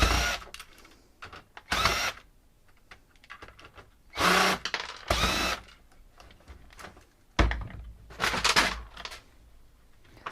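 Cordless drill-driver running in several short bursts, backing bolts out one after another, with small clicks between the bursts.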